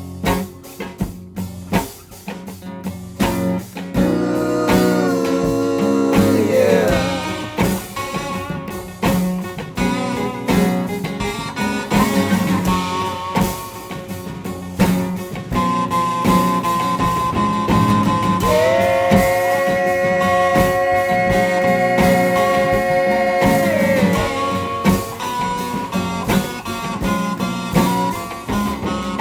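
Instrumental break in a rock song: guitar over bass and drums. One note slides up about six seconds in, and a long sustained note is held from about 18 to 24 seconds.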